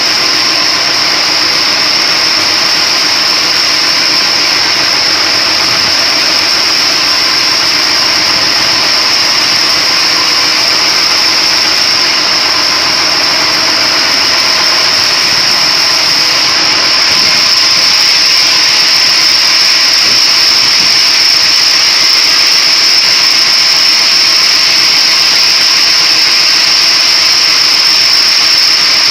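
A splitting machine running steadily: a constant mechanical noise with a strong, steady high whine, getting slightly louder partway through.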